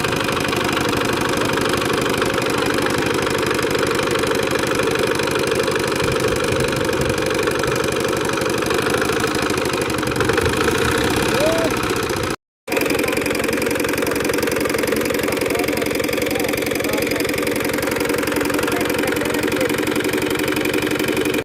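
Engine running steadily at an even speed with a fast knocking beat. It cuts out for an instant about twelve seconds in.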